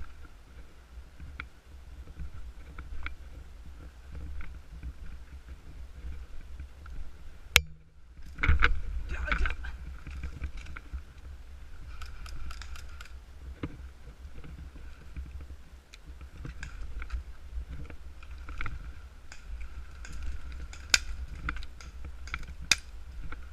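Rustling and a low rumble from a body-worn camera moving through brush, with scattered sharp clicks. One loud click about a third of the way in is followed by a moment of silence.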